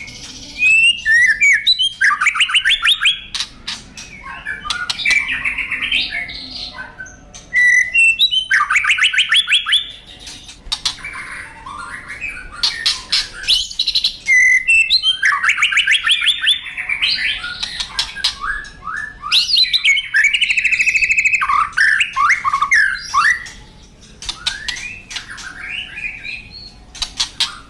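White-rumped shama (murai batu) in full song, a long run of varied phrases: fast trills of rapidly repeated notes, whistled glides and harsh chatters, with brief gaps between phrases.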